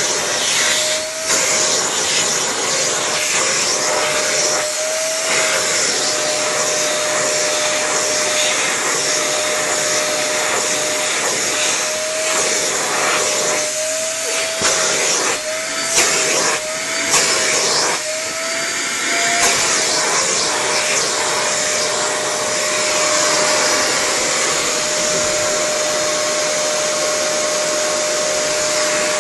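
Shark Navigator vacuum cleaner running steadily through its hose and dusting brush, a constant motor whine over rushing air. In the middle the whine wavers in pitch a few times, with some rubbing and bumping, as the brush is pushed through a cat's fur.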